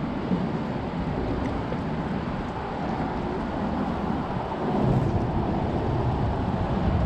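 Steady wind rumble on the microphone, with choppy water lapping against the boat.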